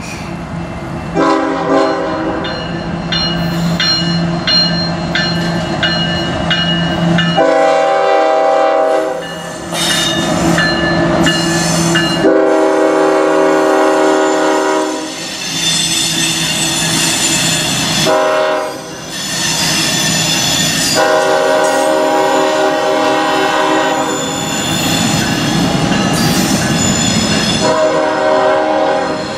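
A freight train's diesel locomotive sounds its multi-chime air horn in a series of long blasts with one short one, the long-long-short-long pattern used at a road crossing, then starts again near the end. Between the blasts come the rumble of the diesel engines, the rolling freight cars and a faint high squeal from the wheels.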